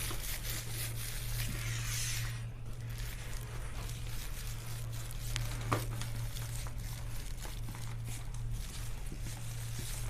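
Fully automatic washing machine running: a steady low hum, with a high hiss that drops away about two and a half seconds in and a single sharp click near the middle.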